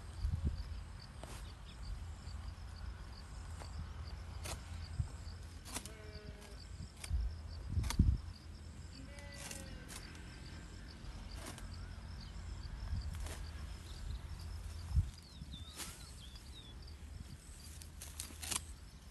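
Open-field ambience: a steady high insect buzz over a low rumble, with scattered clicks and a thump about eight seconds in. A couple of faint animal calls come about six and ten seconds in.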